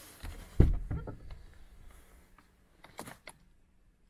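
VW Golf Mk7 front door being opened from inside: one heavy clunk of the latch about half a second in, then lighter knocks and, about three seconds in, a few sharp clicks.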